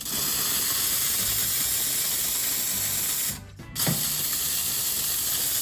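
Steam wand of an ECM Synchronika II double-boiler espresso machine hissing loudly as its valve is opened, shut off a little over three seconds in, then opened again.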